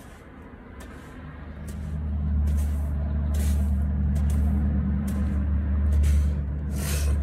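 A motor vehicle's engine running low and steady, fading in over the first two seconds and then holding. Over it come short hissing swishes, about one a second, as hands plunge into a bucket of sand.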